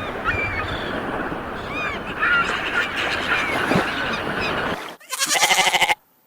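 Farm animals calling: many short overlapping calls over a noisy background, then one loud, wavering call about five seconds in lasting about a second, cut off abruptly.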